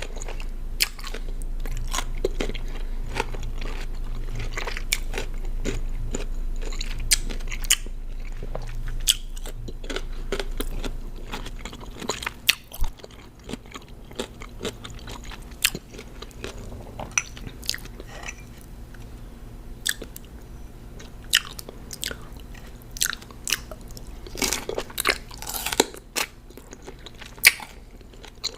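Close-miked biting and chewing of raw cucumber: a continuous run of sharp crunches, dense during the first twelve seconds or so, then sparser.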